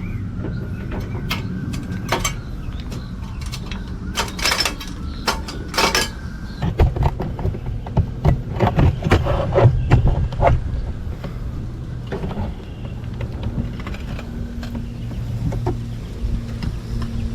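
Irregular knocks and clatter over a steady low hum. The knocks come in a cluster a few seconds in and another around the middle, then thin out.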